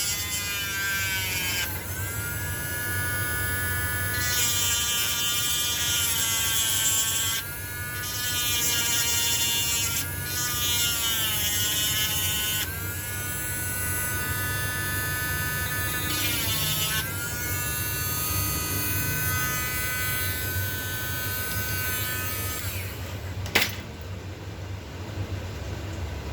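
Small electric drill whining as it works at a seized screw, the pitch dipping and recovering several times. The motor stops near the end, followed by a single sharp knock.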